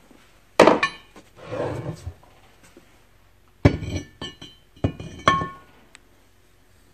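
A 14-inch Dodge 3500 cast-iron brake rotor clanking and ringing as it is slid down over the hub of a Dana 60 knuckle: one sharp clank about half a second in, a short scrape, then a quick run of clanks with ringing a few seconds in.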